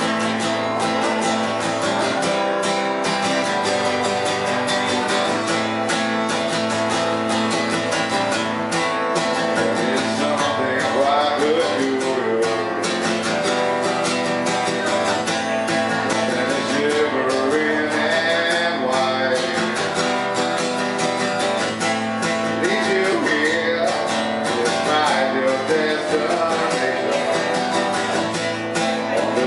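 Acoustic guitar strummed steadily in a live solo performance, with a man singing in stretches over it.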